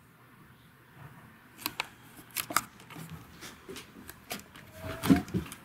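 Handling noise from the camera being picked up and moved close to the microphone: irregular clicks, rustles and knocks, with a short squeak and the loudest thump about five seconds in.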